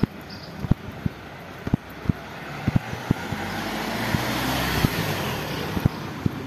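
A car passes along the street, its noise swelling to a peak about four to five seconds in and then fading, over the sharp, steady steps of someone walking on tiled pavement.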